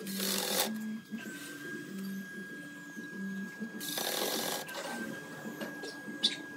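Makita cordless impact driver running screws through a steel hinge into wood in two short bursts, one at the start and one about four seconds in. Background music with a plucked melody plays throughout.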